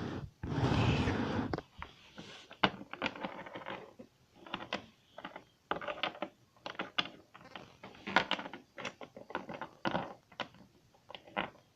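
Plastic toy figurines being handled and set down: irregular clicks and taps, with a short rustling shuffle about a second in.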